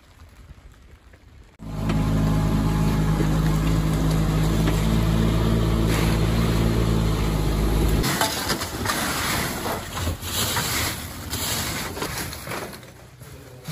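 The engine of a crane lifting a bulk bag comes in suddenly about two seconds in, running at a steady hum, and cuts off sharply about eight seconds in. Irregular crunching and rustling follow as the bag of foamed-glass gravel is handled and its load spills out.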